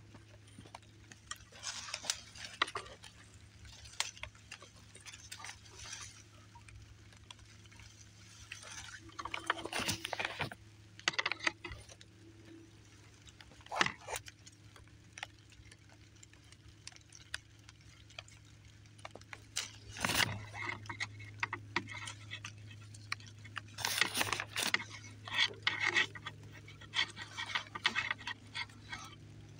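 Leaves and branches of dense berry bushes rustling and snapping in irregular bursts as someone pushes through the brush. A steady low hum runs underneath.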